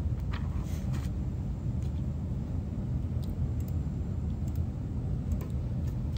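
A steady low rumble of office room noise, with scattered light clicks and taps from typing on a computer keyboard and a plastic fork in a foil pie tin.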